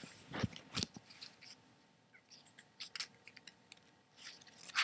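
A few faint, short clicks and soft noise bursts: two within the first second, then scattered single ones, the loudest at the very end.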